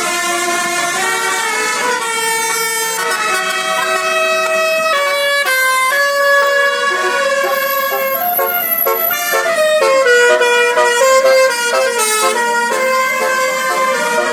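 A bus's telolet basuri musical horn playing a tune: a loud string of horn notes stepping up and down in pitch, longer held notes at first and a run of quick short notes in the second half.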